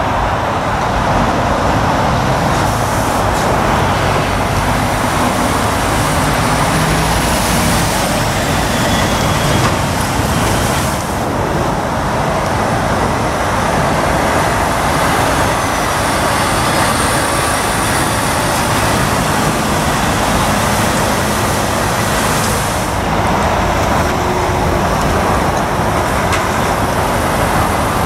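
Heavy diesel lorry engines running steadily as articulated trucks manoeuvre slowly, first a Scania tractor unit and then a Volvo FH 460 tanker tractor unit pulling past close by.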